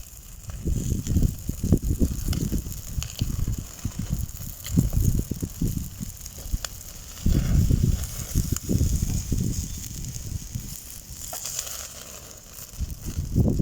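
Wind buffeting the microphone in irregular gusts, over scattered crackling and sizzling from a charcoal fire pit.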